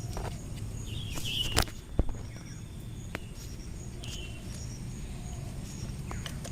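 Quiet outdoor background with a steady low rumble, a few short bird chirps, and two sharp clicks close together about a second and a half in.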